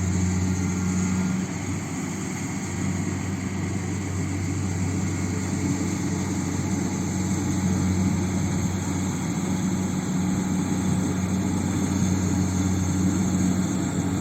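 Kubota combine harvester's diesel engine running steadily with an even, low hum.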